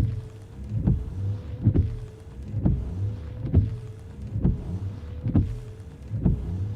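Car windshield wipers sweeping back and forth at a steady pace, with a thump at the end of each stroke about once a second. Under the thumps runs the steady whine of the wiper motor, dipping slightly with each sweep.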